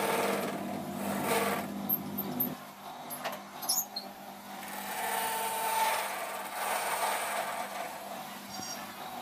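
An electric motor running in short spells, humming with a steady pitch that drops away and then comes back, with a few light clicks in between.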